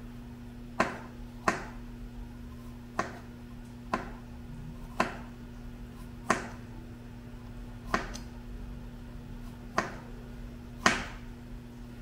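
Chef's knife chopping red bell pepper and carrot on a plastic cutting board: about nine separate, unhurried strikes, roughly one a second. A steady low hum runs underneath.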